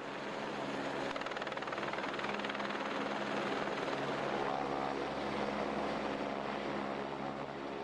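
Helicopter holding a hover with a man cage slung below on a long line, its rotor and engine running at a steady drone.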